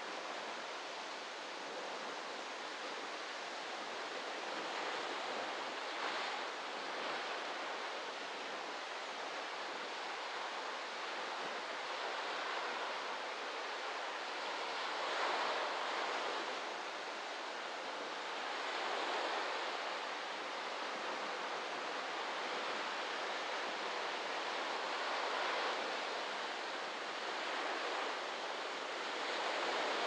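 Waves breaking onto a beach: a steady wash of surf that swells gently every few seconds.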